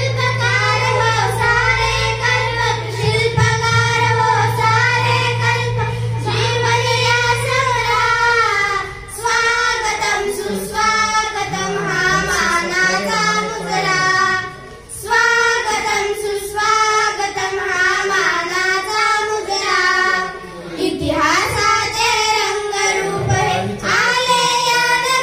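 Two schoolgirls singing a Marathi welcome song (swagat geet) together into handheld microphones. A low steady hum sits under the first eight seconds or so.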